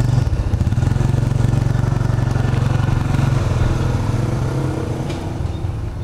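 A vehicle engine running close by, loud and steady, then fading away over the last couple of seconds.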